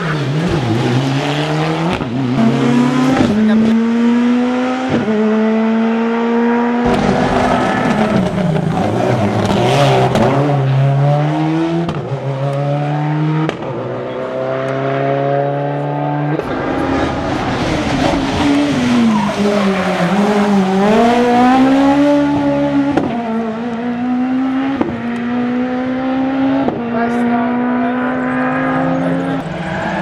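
Rally cars, a Mitsubishi Lancer Evolution and a Subaru Impreza, each with a turbocharged four-cylinder engine, accelerating hard past the camera. The engine note climbs and snaps down at each quick upshift, again and again. Midway it falls away under braking and rises again out of a corner.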